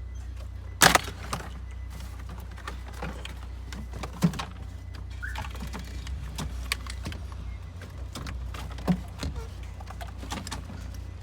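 Scattered sharp clicks and knocks of hand work on a car's dashboard trim, the loudest about a second in, over a steady low hum.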